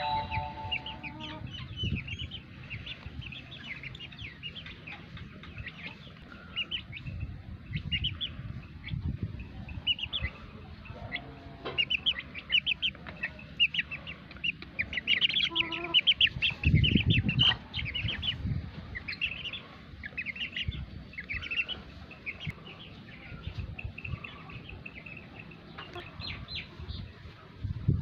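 Small birds chirping continuously in quick, short high notes. A goat's bleat trails off at the very start, and there is a brief low rumble a little past halfway.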